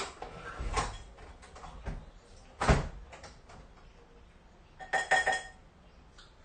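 Scattered knocks and clinks of tableware during a meal: a few light taps, a heavier knock about two and a half seconds in, and a short ringing clink of dishes about five seconds in.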